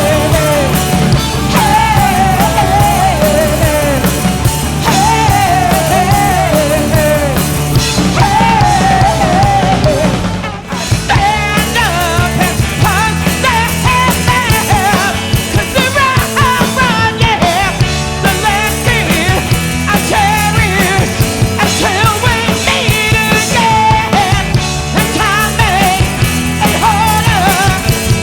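Live rock cover band playing full-band rock music: drums, bass and guitars, with a wavering lead line that repeats falling phrases. About ten seconds in the music drops out for a moment and a different song starts, with a busier, more clipped beat.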